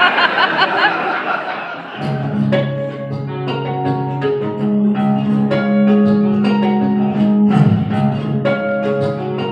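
Audience cheering and whistling dies away. About two seconds in, two electric guitars start a classical-style instrumental: single picked notes over steadily held low bass notes.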